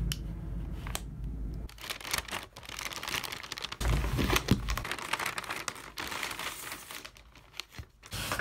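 Paper and plastic shipping bags crinkling and rustling as books are pulled out of them and stacked, with small knocks and clicks in between.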